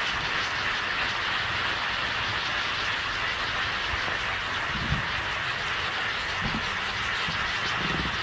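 Oztastic ground firework fountain burning, a steady hiss of spraying sparks.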